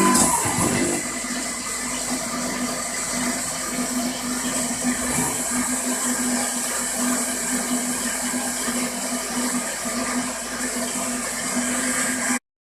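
BF20 milling machine running a CNC cut: a steady hiss with a steady low hum underneath, cutting off suddenly near the end.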